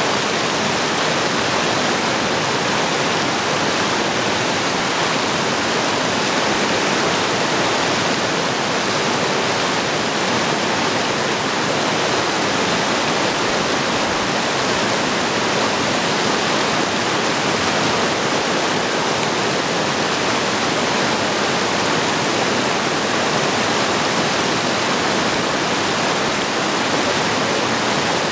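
Steady rush of running water: a shallow rocky creek flowing over stones, with hot spring water spilling down a rock face into it.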